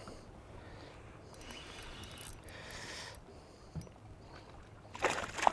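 Faint water lapping against a boat hull with light wind noise, and a brief soft hiss a couple of seconds in.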